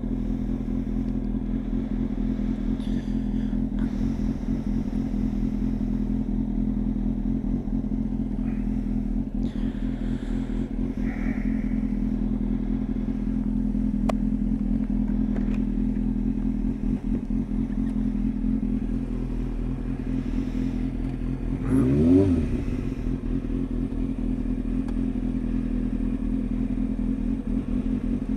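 Kawasaki Ninja ZX-6R 636's inline-four engine idling steadily at an even pitch, with one brief rev of the throttle well past the middle that rises and falls back to idle.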